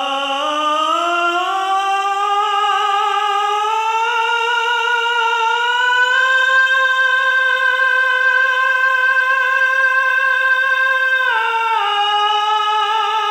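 A tenor sings one long note with vibrato in a pharyngeal head/chest mix. He slides smoothly up more than an octave to a high note near high C (C5) and holds it. About eleven seconds in he steps down a little and holds the lower note.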